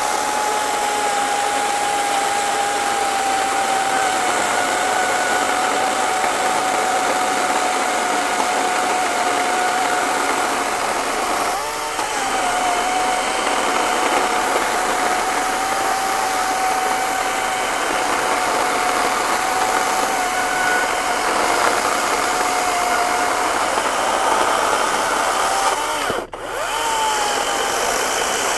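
EGO 56-volt brushless 16-inch battery chainsaw cutting through a thick wet oak log: a steady high motor whine over the rasp of the chain in the wood, its pitch sinking slowly as the cut loads the motor. The whine wavers once about halfway, and near the end it breaks off for a moment before picking up again.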